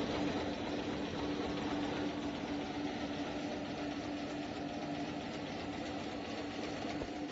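Automatic face-mask making machine running: a steady mechanical hum with one constant tone.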